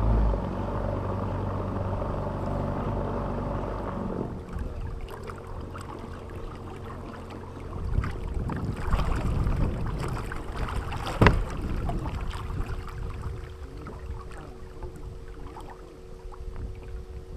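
A boat motor runs for about four seconds, then cuts off, under a steady thin whine that carries on throughout. A sharp knock comes about eleven seconds in.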